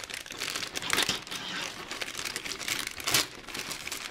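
Thin clear plastic parts bag crinkling in irregular crackles as it is handled and worked at with a pocketknife to cut it open, with louder crackles about a second in and again near three seconds.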